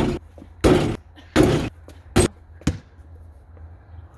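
A basketball hitting and bouncing about five times, roughly every half to three-quarters of a second, the last two hits weaker.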